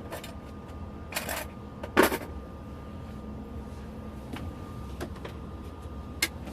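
Clicks and knocks of things being handled in a truck-cab storage cabinet, the loudest about two seconds in and a few lighter ones after, over a low steady hum and a faint steady high tone.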